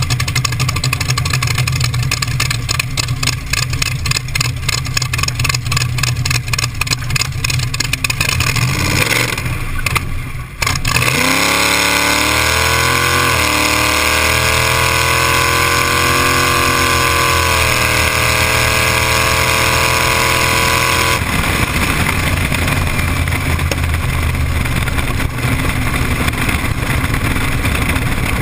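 T-bucket hot rod engine idling with a lumpy, pulsing beat. About ten seconds in it revs up hard and pulls through the gears on a drag-strip pass: the pitch climbs, drops briefly twice at the gear changes, and keeps climbing. About twenty seconds in the throttle is lifted, leaving a rougher engine sound and wind rush.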